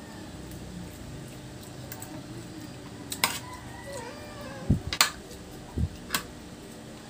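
Spoons and forks clinking and scraping on stainless steel divided plates during a meal, with a few sharp clinks in the second half and a couple of dull knocks against the table.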